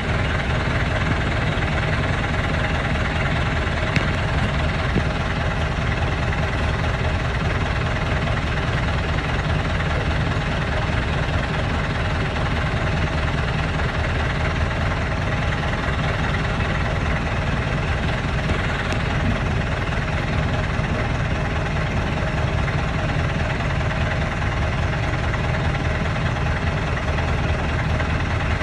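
A motor vehicle's engine idling steadily close by: an even, unbroken low drone.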